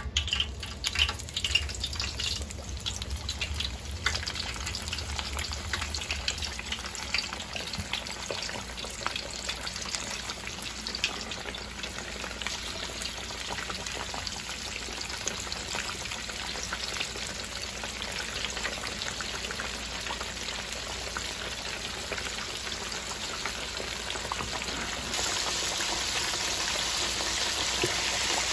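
Battered fish deep-frying in hot grease in a pot: a steady crackling sizzle, with sharper pops in the first couple of seconds as pieces are dropped into the oil, turning louder near the end.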